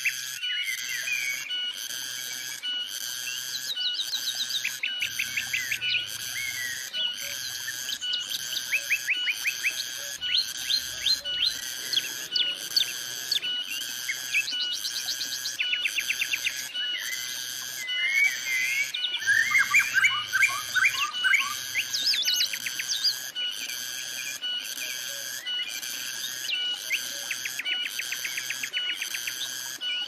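Cicadas calling in a steady pulsing chorus of about one pulse a second. Several birds sing quick rapid trills and chirps over it, with the busiest, loudest burst of birdsong about two-thirds of the way in.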